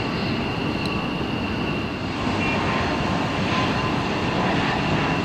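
Fighter jet engines running at a distance: a steady jet rumble with a faint high turbine whine, growing slightly louder about two seconds in.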